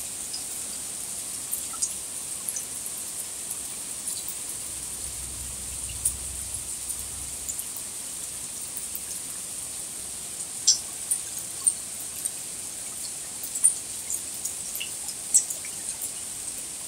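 Light rain falling: scattered drops ticking close by, a few louder than the rest, over a steady high-pitched hiss.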